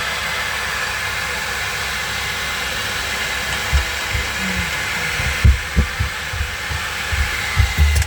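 Hair dryer blowing steadily on a large porcelain bowl, a loud even hiss, with irregular low thumps from about halfway in; it cuts off at the end.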